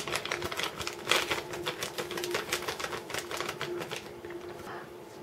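Paper seasoning sachet crinkling and ticking as fingers tap and shake spice out of it: a quick, irregular run of light clicks that thins out about four seconds in. A faint steady hum underneath.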